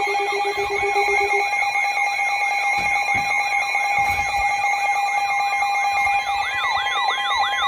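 Weather alert radios sounding their warning alarms together for a new severe thunderstorm warning. Steady tones are layered with warbling siren sweeps that repeat about three times a second and grow wider near the end. A fast-pulsing low beep stops about a second and a half in.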